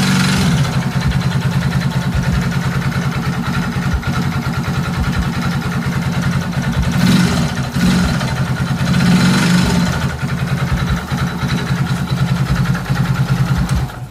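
Engine idling with an even, fast pulse, revved briefly twice about halfway through; the owner says the engine makes an abnormal noise when accelerating.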